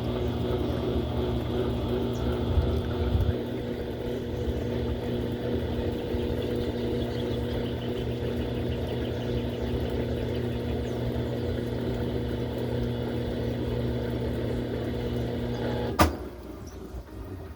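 Brastemp Ative 11 kg (BWB11) washing machine running with a steady motor hum, ending with a sharp click near the end, after which it drops away.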